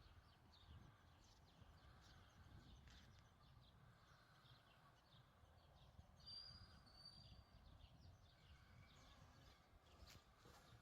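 Near silence: faint outdoor ambience with scattered faint ticks, and two short high chirps a little past the middle.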